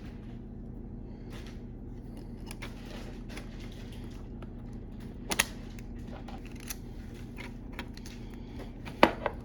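Small plastic clicks and taps from an Xbox controller's shell and replacement bumper parts being handled and fitted, with two sharper clicks about five and nine seconds in, over a steady low hum.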